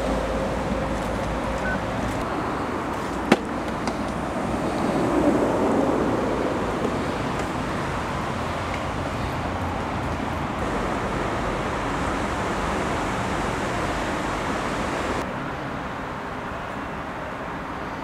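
Steady rumble of motorway traffic on the A20, heard from behind its noise barrier, with one sharp click about three seconds in.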